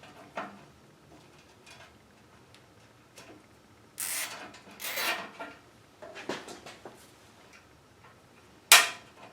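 Scattered handling noises of hand work: light clicks, two short rasping rubs about four and five seconds in, and one sharp click near the end.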